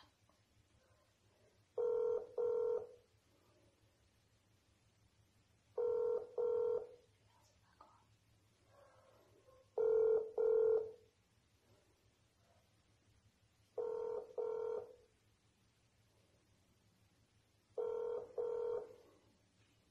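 WhatsApp outgoing-call ringback tone from a phone's speaker: a pair of short beeps repeating about every four seconds, five pairs in all, while the call rings unanswered.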